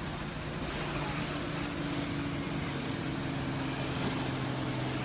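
A motor engine droning steadily at an even pitch under a continuous hiss of surf and wind.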